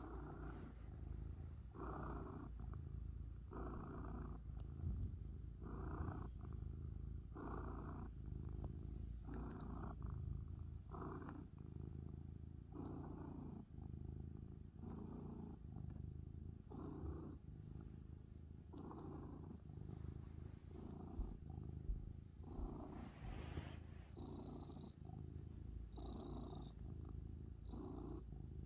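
Black-and-white domestic cat purring steadily right at the microphone, the purr swelling and easing in a regular rhythm with its breaths.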